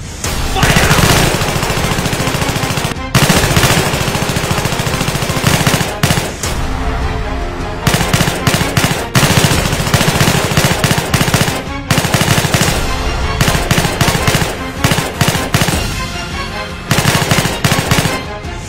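Automatic gunfire: several long bursts of rapid shots, with short breaks between them.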